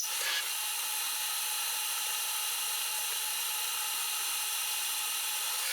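Power drill running at a steady speed while boring holes in beech wood, with a light knock at the start.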